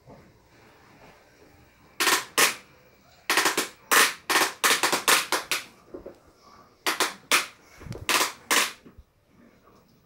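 A quick, irregular series of short, sharp bangs from a toddler's pink Fusca ride-on toy car, in three runs between about two and nine seconds in.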